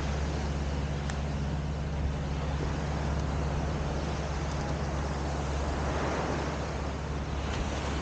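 Wind rumbling on the microphone over the steady wash of surf, with a wave swelling about six seconds in.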